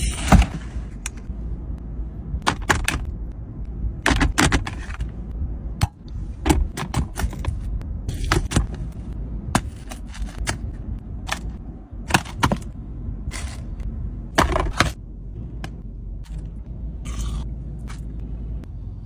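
Crinkles, clicks and scrapes of plastic and paper food containers and pastries being handled, some in quick clusters, over a steady low rumble.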